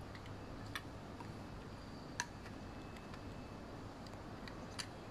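A few small, sharp plastic clicks, the middle one loudest, as fingers press on and handle a car key remote's plastic casing.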